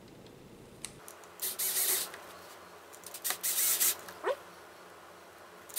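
Cordless electric screwdriver running in two short bursts as it drives small screws into a plastic RC car chassis, with a brief rising squeak near the end of the second burst.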